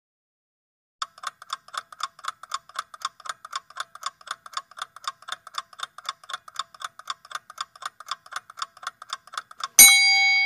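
Countdown-timer clock-ticking sound effect, a rapid, even tick-tock, ending near the end in a single bell ding that rings on and fades, signalling that the time to answer is up.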